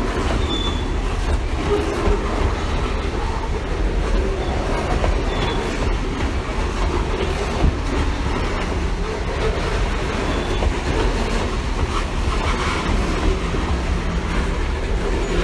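CSX freight train rolling past: steady rumble and clatter of wheels on rail, with a few brief, faint high squeals from the wheels.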